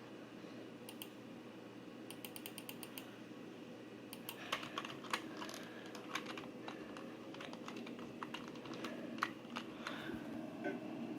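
Scattered sharp clicks and ticks, with a quick run of about eight clicks a few seconds in, over a steady low hum.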